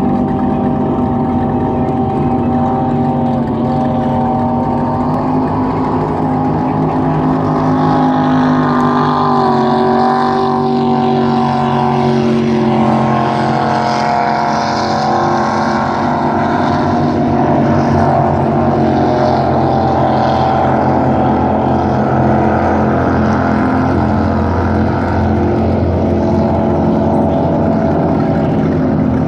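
Motorboat engines running steadily, their pitch shifting slightly now and then.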